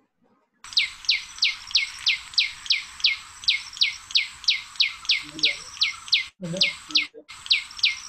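Recorded common tailorbird calling: a loud, rapid series of sharp, downward-sweeping notes, about three a second, starting abruptly about half a second in. It is played back over a video call, and the sound cuts out briefly twice near the end.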